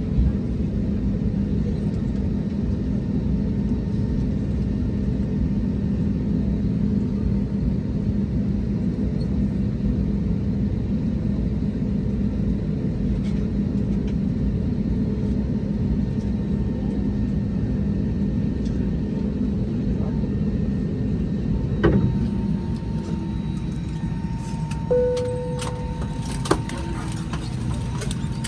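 Airbus A320neo cabin noise while taxiing after landing: a steady engine rumble with a constant low hum. Near the end there is a knock, the rumble eases a little, and a short tone sounds, followed by a few clicks.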